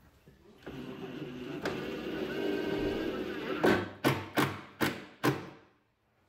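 Cordless drill boring a pilot hole through the clamped cabinet frames: the motor runs steadily for about three seconds, rising a little in pitch, then gives five short bursts before it stops.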